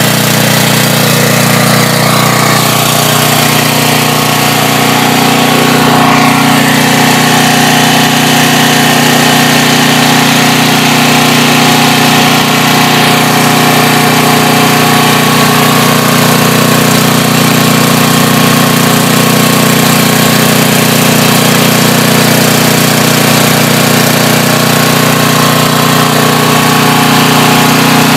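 Briggs & Stratton 11 hp OHV single-cylinder generator engine running steadily on natural gas through a tri-fuel carburetor conversion, its mixture opened up so that it runs fine.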